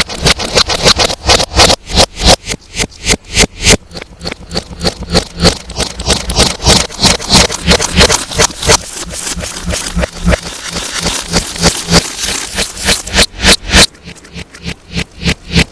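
Slime being squeezed and worked by hand: a fast, irregular run of sharp clicks and pops, several a second, heavily distorted.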